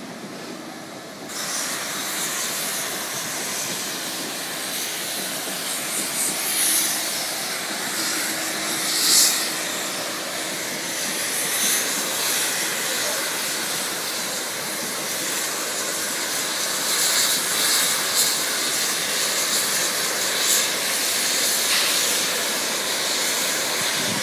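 LNER Peppercorn A1 Pacific steam locomotive 60163 Tornado standing with escaping steam, a loud steady hiss that starts abruptly about a second in, with several brief louder surges.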